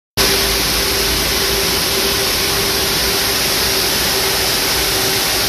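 Steady machine noise: an even, loud rush with a constant mid-pitched hum.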